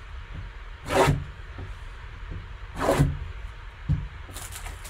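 Gloved hands handling a cardboard trading-card box: two short brushing swishes about two seconds apart, a single knock just before four seconds, then faint ticking and crackling near the end as a folding knife works at the box's taped seal.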